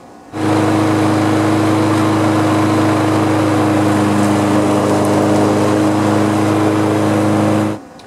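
Walk-behind lawn mower's small engine running at a steady speed; it cuts in sharply just after the start and cuts off sharply near the end.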